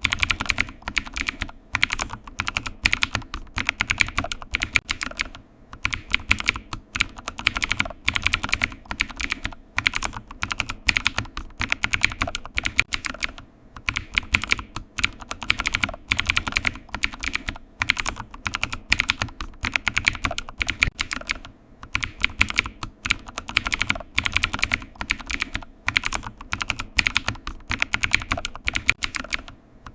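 Computer keyboard typing: fast, continuous keystroke clicks in quick runs, broken now and then by short pauses of under half a second.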